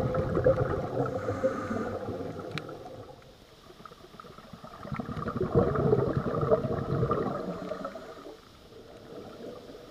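Scuba diver's exhaled breath bubbling out of the regulator, heard underwater: a gurgling rush of bubbles in two long bursts. The first fades out about three seconds in, and the second swells about five seconds in and dies away near eight seconds.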